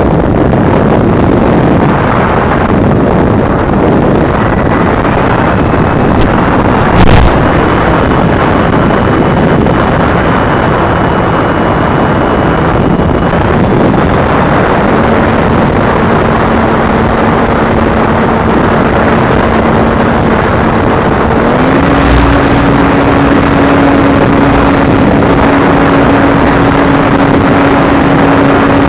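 FPV drone in flight recorded on its onboard camera: loud wind rush on the microphone with a steady motor whine that jumps in pitch a few times. A brief knock sounds near 7 s and another near 22 s.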